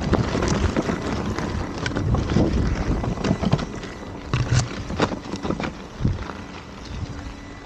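Electric unicycle riding down a rocky dirt trail: the knobby tyre crunching over loose stones, with irregular knocks and rattles and wind rushing on the microphone. Louder over the first half, easing toward the end.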